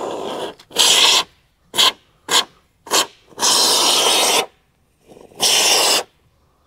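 Expanding foam spraying from an aerosol can through a straw nozzle, hissing out in a run of separate spurts as the trigger is pressed and let go: several short spurts and two longer ones of about a second.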